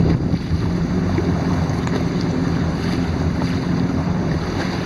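Jet ski engine idling steadily, with wind noise on the microphone.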